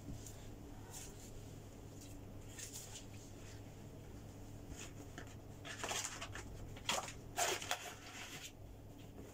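Rustling of a reusable shopping bag as it is handled, with a few louder rustles in a cluster about six to seven and a half seconds in, over a low steady hum.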